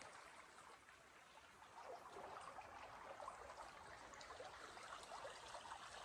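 Near silence at first, then from about two seconds in a faint stream trickling and gurgling.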